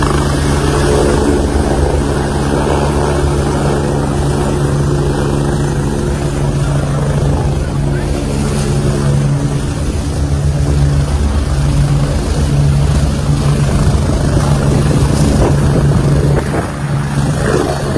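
Helicopter coming in low to land and then running on the pad with its rotors turning: a loud, steady rotor and engine drone with a strong low hum, easing slightly near the end.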